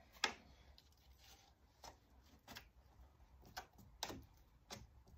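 Faint, scattered clicks and light taps of hand work packing resin-and-chopped-strand fibreglass filler into a fibreglass bumper, about seven in all, the first the loudest.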